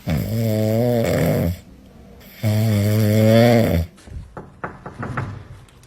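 Two long, loud snores about a second apart, each drawn out and steady, followed by a few faint clicks.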